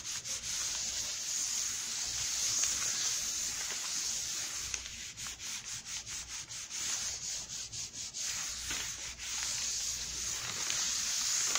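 Clothes iron sliding back and forth over a sheet of paper laid on EVA craft foam, a steady papery rubbing hiss as the foam is heated. In the middle it breaks into a run of short, quick strokes, then smooths out again.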